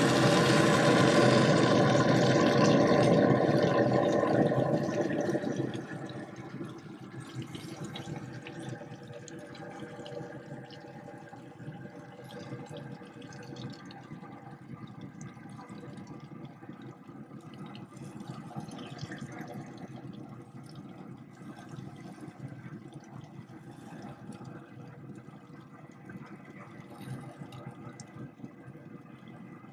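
Bacon-wrapped shells sizzling and hissing on a pellet grill, loud for the first five seconds, then quieter and steady.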